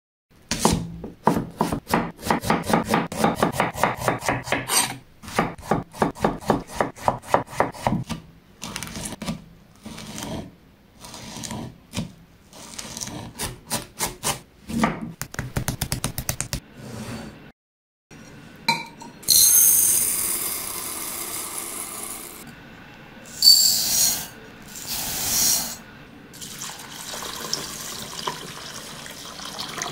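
A chef's knife chopping fresh coriander on a wooden cutting board in quick, even strokes. About two-thirds of the way through the chopping stops, and water is poured over dry basmati rice in a glass bowl, a bright splashing pour that settles into a softer trickle.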